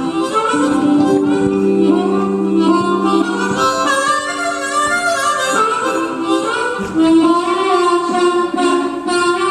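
Live band playing music: held chords with a melody moving over them, the notes changing about every second.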